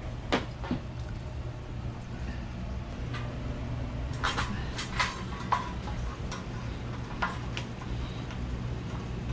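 Scattered sharp clicks and taps of garage door opener parts and the drive belt being handled, several close together about halfway through, over a steady low hum.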